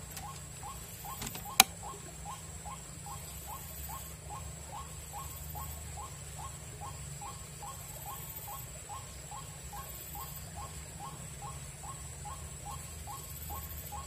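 A steady, rapid series of short rising animal calls, two to three a second. A single sharp click comes about one and a half seconds in.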